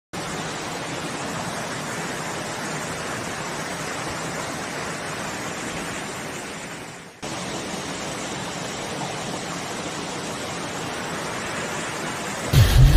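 Fast-flowing floodwater rushing steadily. It fades and breaks off briefly about seven seconds in, then resumes, with a brief loud low rumble near the end.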